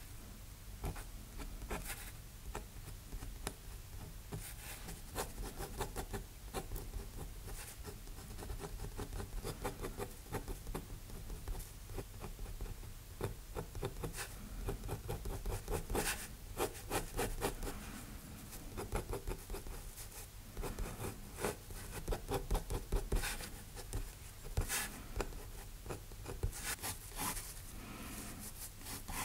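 Steel G-pen dip nib scratching across drawing paper in many quick, short strokes as a line drawing is inked.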